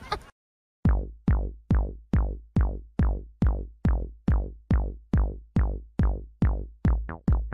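Electronic background music: a drum-machine beat of deep booming kick drums that fall in pitch, about two a second, starting just under a second in and quickening into a short run of faster hits near the end.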